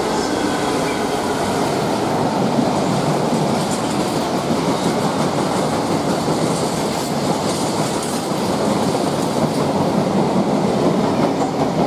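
A Class 66 diesel-electric freight locomotive passes close by with its engine running, followed by a long train of open box wagons rolling through with a steady clatter of wheels over the rail joints.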